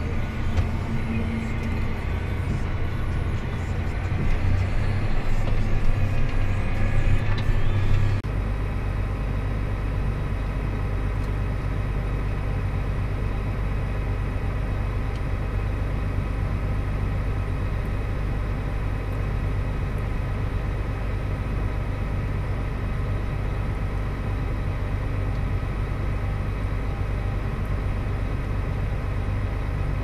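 A John Deere tractor's engine running, heard from inside the cab, with a whine that rises slowly in pitch over the first several seconds. About eight seconds in the sound changes abruptly to a steadier, lower engine hum.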